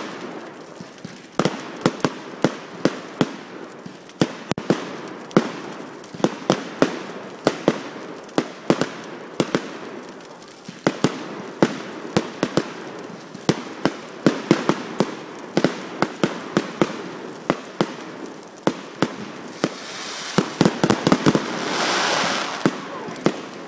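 Aerial fireworks bursting in a rapid, irregular string of sharp bangs, several a second. Near the end comes a quick cluster of bangs, then a dense crackling hiss as a glittering burst fills the sky.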